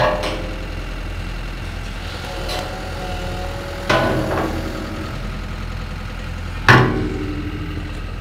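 Hydraulic excavator's diesel engine idling steadily, with three sharp metallic clanks that ring briefly: one at the start, one about four seconds in and the loudest about seven seconds in, as the steel beam held by the bucket knocks into place.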